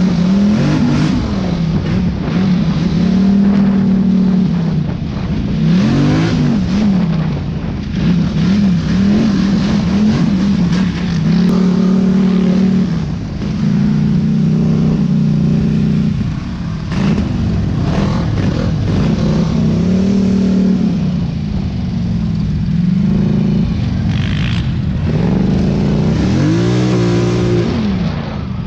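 An ATV engine, heard from the seat, revving up and down as the throttle opens and closes on a rough dirt trail, with wind rushing over the microphone.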